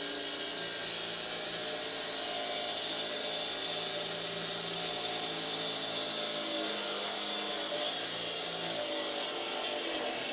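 Electric stone-cutting machine running and cutting, with a steady high hiss over a motor whine whose pitch sags and recovers as it bites.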